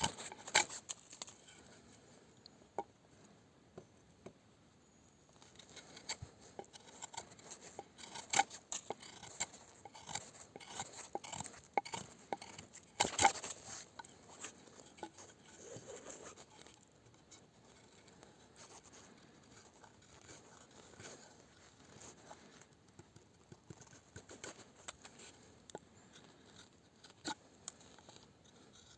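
Irregular scraping, cutting and light clicking from a Mora knife being worked by hand, with a sharp cluster of scrapes about halfway through.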